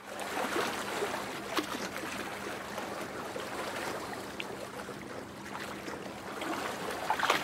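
Water lapping and trickling, a steady watery wash with no pitch to it. A short swish comes near the end.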